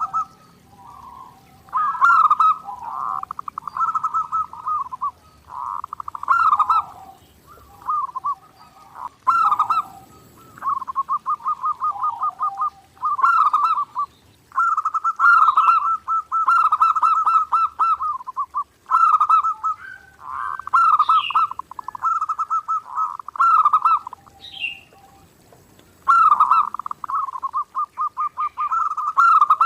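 Zebra dove (perkutut) cooing: repeated phrases of rapid, staccato notes at a fairly steady pitch, with short pauses between phrases.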